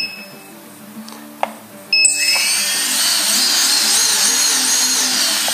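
Brushless motors of a JJRC P175 racing quadcopter spinning up about two seconds in and running with a steady high-pitched whine. The quad has been armed with motor stop disabled, so the motors idle once armed.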